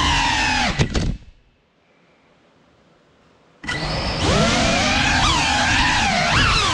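GEPRC Cinelog 35 6S FPV cinewhoop's ducted props and motors whining, the pitch rising and falling with the throttle. About a second in there is a sharp knock and the sound cuts out almost to silence for over two seconds, then the motor whine comes back, again sweeping up and down.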